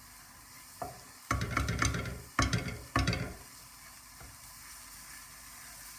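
Onion and garlic frying faintly in oil in a non-stick pot. A wooden spoon stirs and scrapes against the pot in a few loud strokes between about one and three seconds in.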